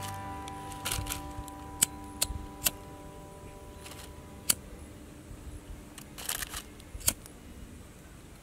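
Clear plastic cup and bottle plastic being handled and turned in the hands, crinkling now and then, with several sharp clicks about a second apart in the first half. Faint held notes of background music sound underneath.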